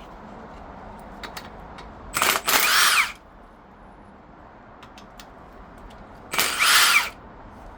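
Handheld power tool with a socket running out the 7/16-inch water pump bolts on an AMC 360 V8: two runs of about a second each, the motor pitch rising and falling, the first about two seconds in and the second near the end.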